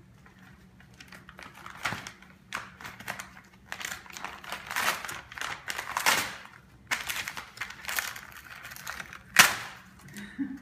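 Wrapping paper being torn and crinkled by small hands unwrapping a present: repeated rustling, ripping bursts, the loudest about nine seconds in.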